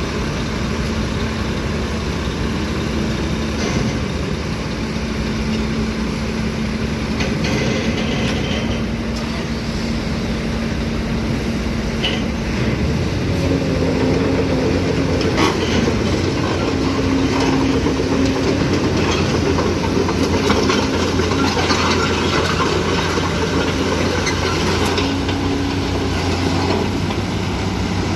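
Lovol FR220D crawler excavator working: its diesel engine runs steadily with a hum that changes pitch several times and rises about halfway through as the load changes, and there are scattered metallic clanks.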